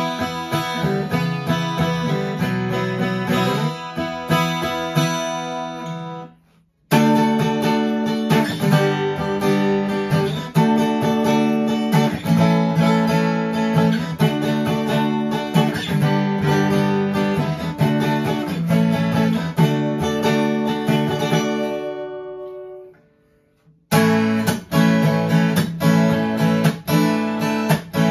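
Martin Super D dreadnought acoustic guitar, with a Sitka VTS spruce top and Guatemalan rosewood back and sides, played with strummed and picked chords. The playing stops twice: about six seconds in it cuts off abruptly, and around 23 seconds in a last chord rings out and fades before a brief silence, then the playing resumes.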